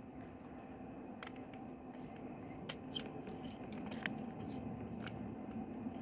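Faint scattered clicks and small scrapes of a screwdriver working the wire terminals of an electrical plug, over a low steady background hum.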